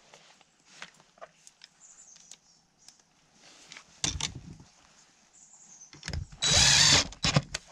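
Cordless drill driving screws to fasten a metal electrical box to a wooden wall. The motor runs in a short burst about four seconds in, then in a longer run of about a second and a half near the end, with faint handling clicks in between.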